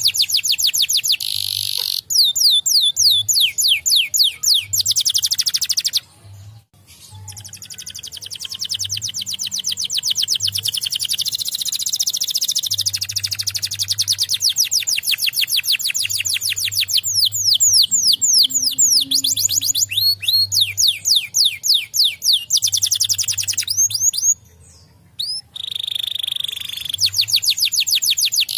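Domestic canary singing: long, very fast trills of repeated notes alternating with runs of quick falling swept notes, breaking off briefly about six seconds in and again near the end.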